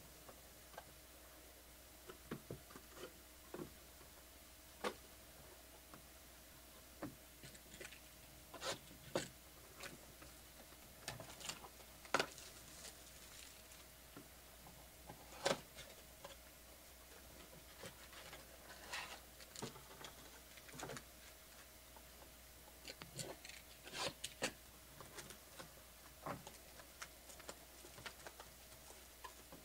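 Hands handling and opening sealed Topps Triple Threads card boxes: scattered soft taps, clicks and crinkles of cardboard and plastic shrink wrap being picked at and torn.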